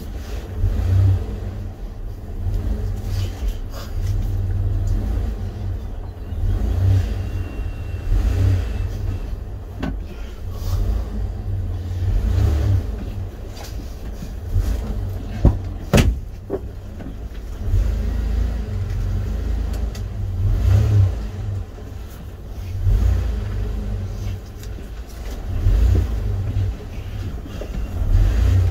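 Tough truck's engine running at low speed while it is backed up: a deep, uneven sound that swells and fades, with a few sharp clicks and one louder knock about 16 seconds in.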